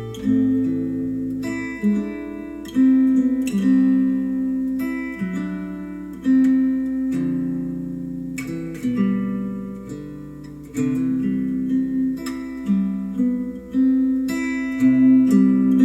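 Plucked acoustic guitar music, single notes and chords each ringing out and fading, played back through Adam Audio A3X powered studio monitors.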